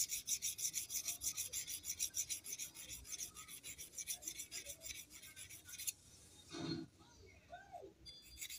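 A small steel point rubbed quickly back and forth on a handheld diamond sharpening plate, several rasping strokes a second. The strokes stop about six seconds in.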